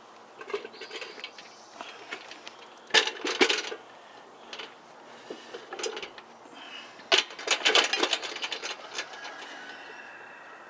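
Metal clanks and rattles of a vintage Homelite C-7 chainsaw, bar and chain on, being handled and set on a scale for weighing: a short cluster of knocks about three seconds in, and a longer run of knocks and rattles around seven to nine seconds.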